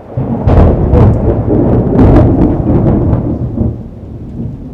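Thunder rolling during a rainstorm: a deep rumble that swells about half a second in, with a few sharp cracks, then fades away near the end, over falling rain.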